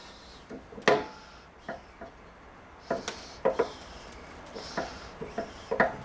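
Irregular light knocks and clicks of flat metal pieces being set down and shifted on a drill press's metal table, the loudest about a second in. The drill press motor is not running.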